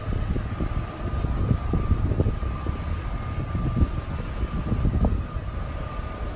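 Airport apron ambience: a steady low rumble with irregular low buffeting, over a steady high-pitched whine.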